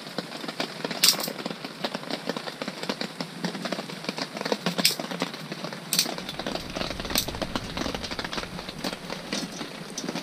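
Wood fire in a small stove crackling, with four sharp pops spread through.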